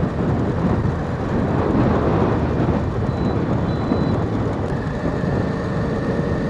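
Steady wind rush on the microphone with the motorcycle's engine and road noise, riding at speed in traffic.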